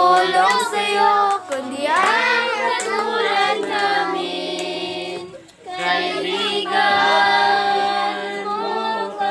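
A group of children singing together, holding long notes, with a short break about halfway through.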